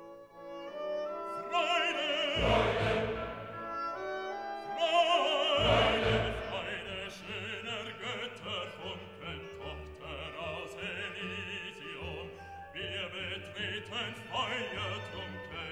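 Orchestral background music with long, sustained melody lines in vibrato, in a classical, operatic style. A deep bass swells in about two seconds in and again at about five and a half seconds.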